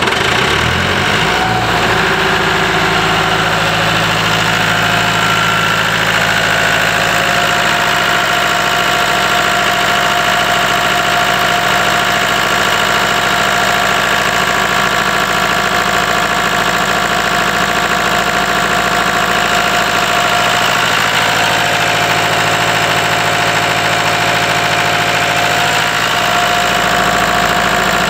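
Caterpillar 3054B four-cylinder diesel engine of a Sullair portable air compressor catching and settling into a steady run in the first second, just after a cold start.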